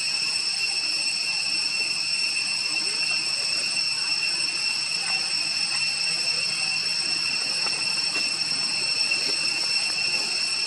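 Steady, high-pitched, unbroken drone of an insect chorus in forest.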